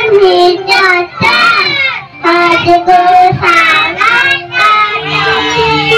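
A young girl singing into a microphone in short phrases with held notes. About five seconds in, recorded music with a steady beat starts.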